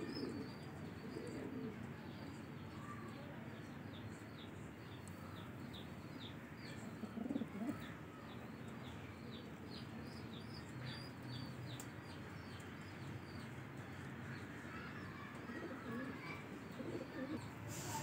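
Rock pigeons cooing softly now and then under a small bird's steady chirping: short high falling notes, two or three a second, that thin out in the second half.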